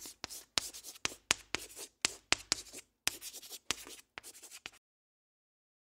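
Writing sound effect: a run of about a dozen quick, scratchy strokes, two or three a second, that stops about five seconds in.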